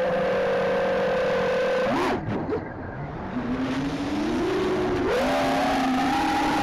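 Motors and propellers of a 5-inch FPV quadcopter whining steadily. About two seconds in, the whine flicks up and then drops away as the throttle is cut. It then climbs back in pitch and settles into a higher steady whine.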